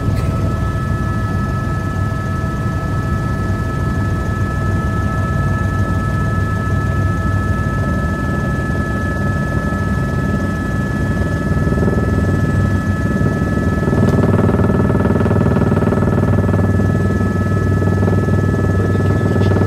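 Helicopter in flight heard from inside the cabin: a steady high whine over a low drone, growing a little louder about 14 seconds in.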